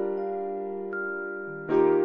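Electric keyboard playing sustained chords, with a new chord struck near the end.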